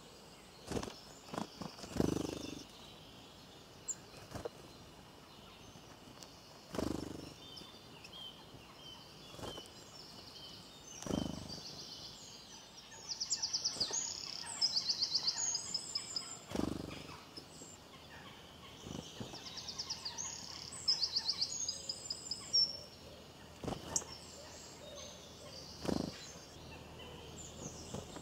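Birds calling: scattered high chirps and two bursts of rapid, high trilling, one near the middle and one about two-thirds through. Several dull thumps are scattered among them.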